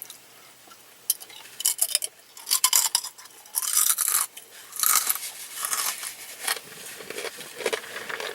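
Eating sounds: irregular crunching and chewing of food, in short bursts that are loudest from about one and a half to five and a half seconds in.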